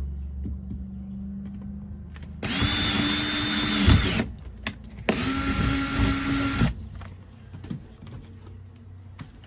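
Power drill boring a hole with a large bit, run in two bursts of about two seconds each, the motor spinning up to a steady whine and winding down each time.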